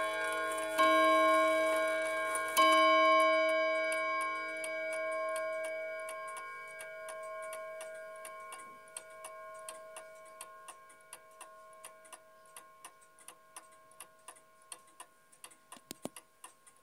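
Napoleon-hat mantel clock striking the hour on its gong rod: two strokes about two seconds apart that ring out and fade over several seconds, the last strokes of three o'clock. As the ringing dies away, the steady tick of the pendulum movement comes through, with a knock near the end.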